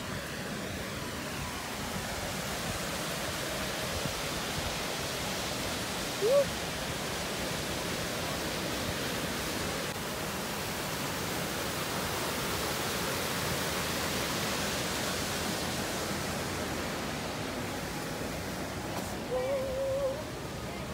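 Steady rush of river water pouring over a weir. A short rising sound cuts in about six seconds in, and a brief wavering one comes near the end.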